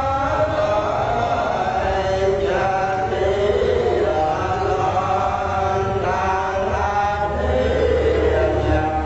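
Group of voices chanting together in a steady, continuous Buddhist recitation, with a low steady hum underneath.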